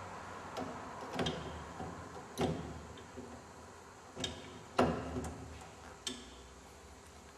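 Irregular sharp clicks and knocks, about six of them, the loudest about two and a half and five seconds in, over a faint steady hum.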